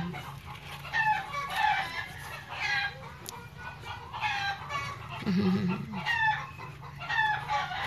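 Newborn puppies squeaking and whimpering as they nurse: short, high-pitched cries repeated every second or so, some falling in pitch.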